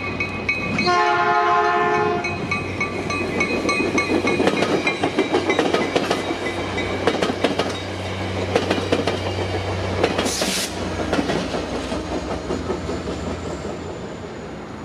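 Caltrain commuter train of Nippon Sharyo gallery cars passing close, pushed by its diesel locomotive: the train horn sounds once, a chord of steady tones, about a second in. Then the wheels clatter over rail joints and switches, with a steady diesel engine drone as the locomotive goes by. A brief high hiss comes near the ten-second mark.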